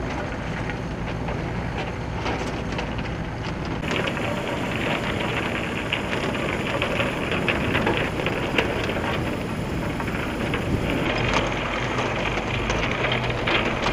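Fishing boat at sea: a steady engine hum under a continuous rush and splash of water, louder and hissier from about four seconds in.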